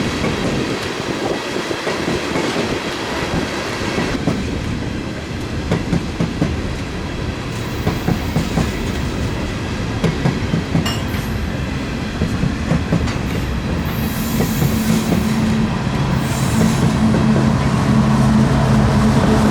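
A string of freight cars rolling slowly along the track, steel wheels clacking over rail joints with a faint squeal. Past the middle a diesel locomotive's engine drone comes in as a steady low hum and grows louder toward the end.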